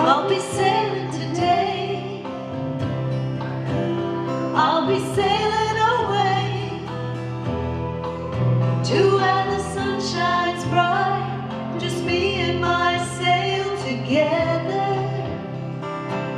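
A woman singing a song in phrases over acoustic guitar accompaniment.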